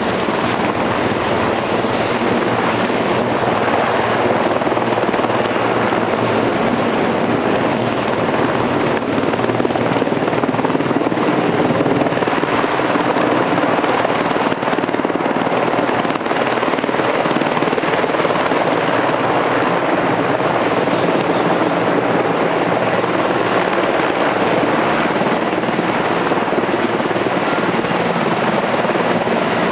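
Sikorsky S-64 Skycrane heavy-lift helicopter in flight: steady, loud rotor and engine noise with a thin, high whine from its twin turboshaft engines.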